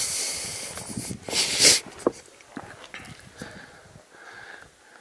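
A hiker's heavy breathing close to the microphone: a long rushing exhale, then a shorter, louder puff about a second and a half in, quieter after that.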